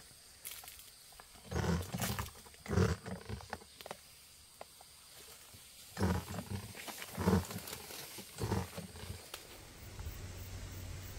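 Irregular rustling and thuds of someone walking through dense leafy coffee bushes: leaves brushing past and footfalls in two clusters, with quieter stretches between.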